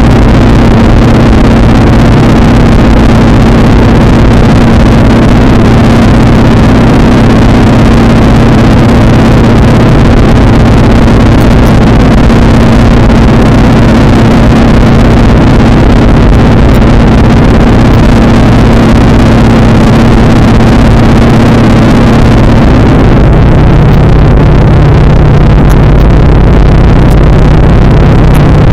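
PZL-104 Wilga light aircraft's piston engine and propeller droning steadily in flight, very loud. About 23 seconds in, the drone shifts to a lower tone.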